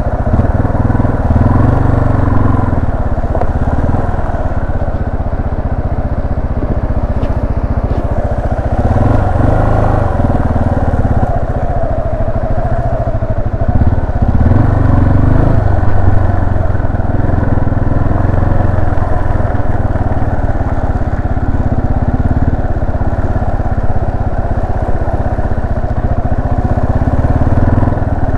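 Yamaha Serow 250's carbureted single-cylinder four-stroke engine running while the bike is ridden at an easy pace, its note rising and falling a few times with the throttle.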